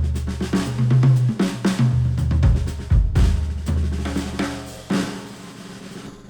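Instrumental music with a drum kit (kick, snare, hi-hat, cymbal) over a low bass line, played through Sennheiser headphones and picked up by microphones. The level falls away over the last second or so.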